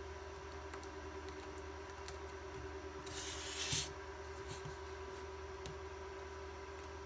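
Handling noise of a PC110 palmtop's plastic case being put back together: a few faint clicks and, about three seconds in, one brief scraping rub, over a steady electrical hum.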